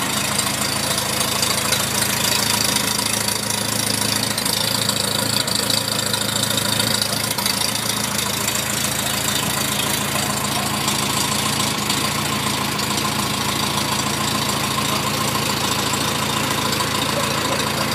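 Farmall A tractor's four-cylinder gasoline engine idling steadily just after a cold start, having sat about three weeks in cold weather.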